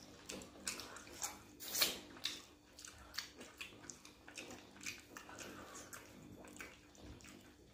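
Close-up wet eating sounds: chewing and lip-smacking, with fingers squishing pounded yam and fish in pepper soup, making a string of short, irregular wet clicks and smacks. The loudest smack comes about two seconds in.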